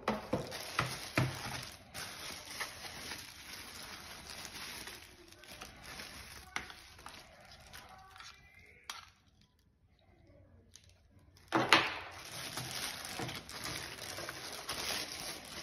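Plastic wrapping crinkling and rustling as hands handle the wrapped flat antenna and its coiled cable, with sharp crackles. It goes quiet for a couple of seconds past the middle, then a loud crackle of plastic sets in again.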